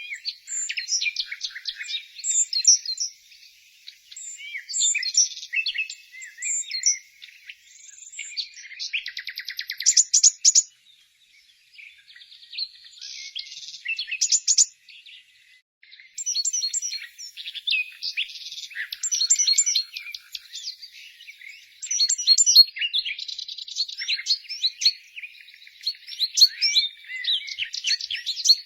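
Small songbirds chirping and singing: quick high-pitched chirps and short whistled phrases in dense runs, with a fast buzzy trill about nine seconds in and a couple of brief pauses.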